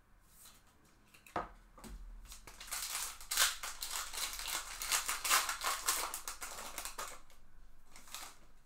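A foil Bowman baseball card pack wrapper being torn open and crinkled by hand. It gives a few sharp crackles about a second in, then a dense crinkling rustle for several seconds that eases off near the end.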